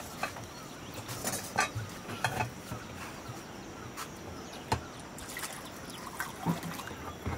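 Water splashing and trickling as a metal water vessel is tipped out, with scattered short knocks of metal pots being handled.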